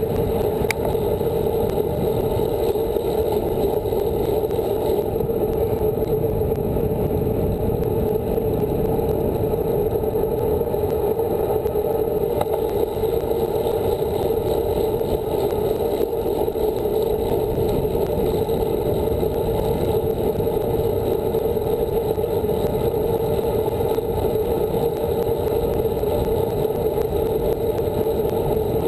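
Steady wind rush over the microphone of a camera mounted on a moving road bicycle's handlebars, a dull, even noise with no change in level. A single sharp click sounds about a second in.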